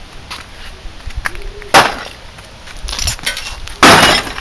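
Two loud smashing blows on a plastic speaker cabinet full of circuit boards, about two seconds apart, with lighter knocks and rattles between them; the second blow rings on a little longer.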